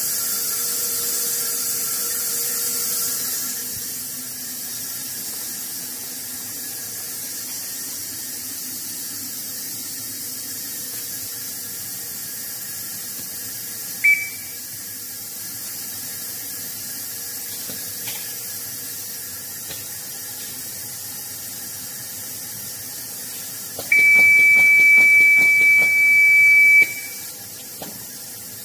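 DISCO DFG8540 wafer back grinder initializing: a steady hiss that drops a little after the first few seconds, a short electronic beep about halfway through, and a loud, steady beep lasting about three seconds near the end, with a few clicks around it.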